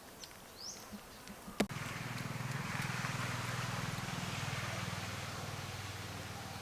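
A sharp click about a second and a half in, then a motor starts running with a steady low hum that continues to the end.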